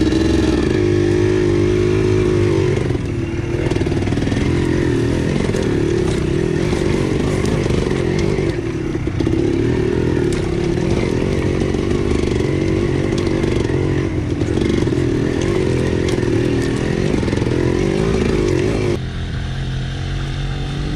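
ATV engine working hard over rough, rocky ground, its revs rising and falling with the throttle. Near the end it drops back to a lower idle.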